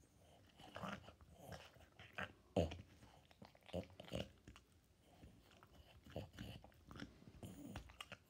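Boston terrier gnawing on a chew bone: irregular crunching and clicking bites, the loudest about two and a half seconds in.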